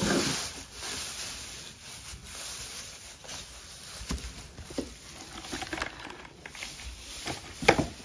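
Straw rustling and crackling as it is pulled out of a feed trough by hand, with scattered small knocks and one sharper knock near the end.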